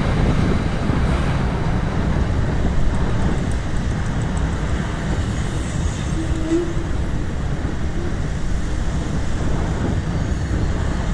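Steady rush of wind and road noise on the microphone of a moving bicycle, with the general noise of road traffic around it.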